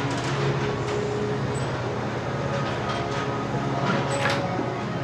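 Dark, rumbling drone of a horror film score, with held tones that shift in pitch over the low rumble.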